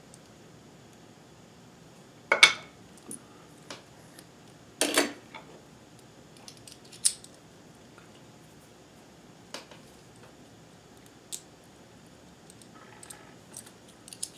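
Scattered metallic clicks and clinks of small sewing-machine parts and a bobbin being handled, a few separate knocks with the loudest two about two and a half and five seconds in.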